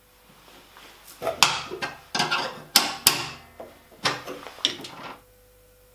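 Combination wrench clinking and scraping against the steel cabinet of a jointer-planer as it is worked and lifted off a chain-tensioner nut: an irregular string of sharp metallic knocks with short ringing, starting about a second in.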